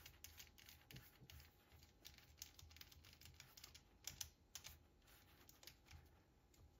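Faint, irregular small clicks and taps of a screwdriver and small plastic parts as the plastic rear bumper of a Traxxas TRX-4M RC truck is screwed back on.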